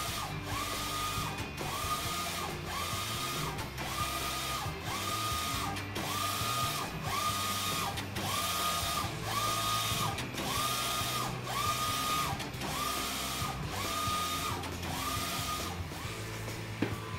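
Mimaki JV150-160 eco-solvent wide-format inkjet printer printing: the print-head carriage shuttles across the media about once a second, its motor whine rising, holding and falling on each pass with short pauses between. The passes stop near the end.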